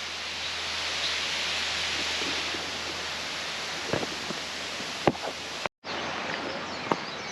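Steady rushing of a waterfall, with a few soft knocks about four and five seconds in. The sound cuts out abruptly near six seconds, then a quieter outdoor ambience follows with birds chirping.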